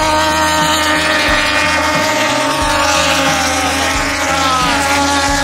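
Racing motorcycle engines running at the circuit: a loud, steady high-revving engine drone, whose pitch falls briefly near the end.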